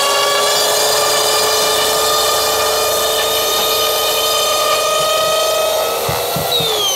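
Mafell electric insulation saw running at steady speed while its blades cut through wood-fibre insulation board. Near the end it is switched off and winds down with a falling whine.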